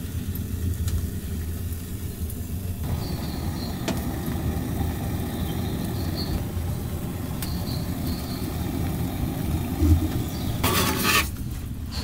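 A steady low rumble, with a short metallic rattle near the end as a steel canteen cup is handled by its wire handle on the woodstove.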